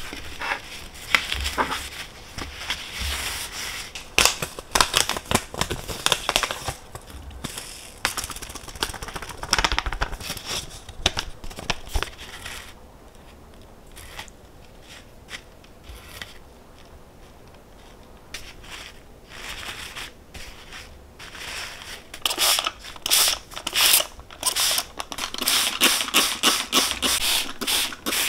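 Cooking-prep handling sounds: a busy run of short clicks, taps and crinkly rustles, dropping to a quieter stretch midway and picking up again for the last several seconds.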